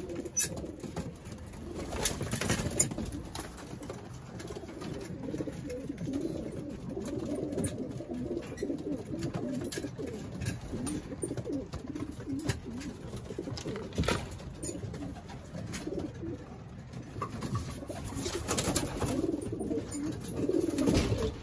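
A loft full of racing pigeons cooing continuously, with a few short sharp knocks among the cooing.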